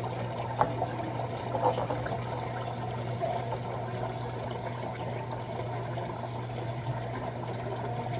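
Water running and splashing in a kitchen, with a steady low hum underneath and a few light clicks near the start.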